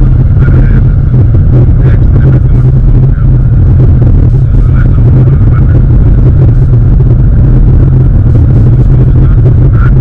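Steady, loud low drone of engine and road noise inside a moving BMW E92 coupe's cabin, overloading the microphone. A man's voice is faint underneath.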